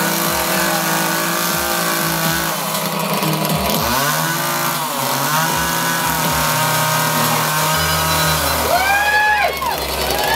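Chainsaw engine running steadily, its pitch dipping and picking back up twice about four to five seconds in.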